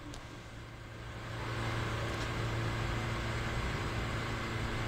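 City street traffic noise with a steady low engine hum, coming up louder about a second and a half in.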